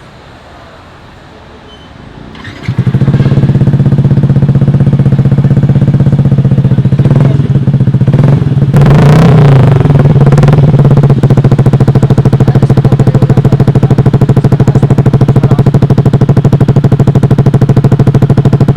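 Yamaha NMAX 155 scooter's single-cylinder engine running through an aftermarket exhaust, coming in loud about three seconds in and idling steadily. A short throttle blip rises and falls in the middle, then it settles back to idle.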